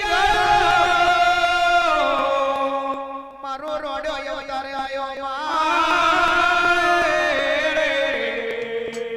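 Gujarati jagar devotional folk singing: long drawn-out sung notes, held and stepping from one pitch to another, with a brief drop about three seconds in.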